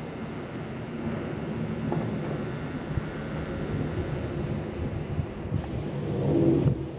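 Airbus A340 four-engine jet airliner passing low overhead: a steady, deep rumble of jet engine noise. It swells near the end, then drops off suddenly.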